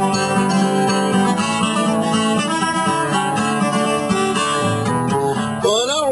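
Background music: strummed acoustic guitar, with a voice coming in just before the end.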